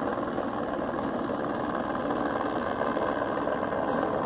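A steady engine drone with no breaks or changes.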